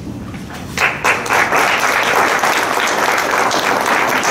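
Audience applauding, breaking out suddenly about a second in and then continuing at a steady level.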